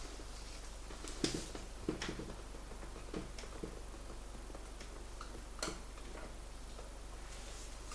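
Scattered light clicks, taps and rustles of a patient's legs being moved and pressed on a padded treatment table during a hip and low-back range-of-motion check, over a low steady hum.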